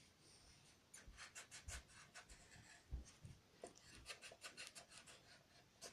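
Faint scratching of a coloured pencil on paper: a run of quick, short back-and-forth strokes as a child colours in.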